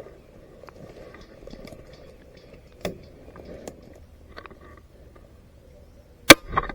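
Faint rustling of movement with a few light clicks, then near the end two sharp airsoft gun shots close together, the first the loudest.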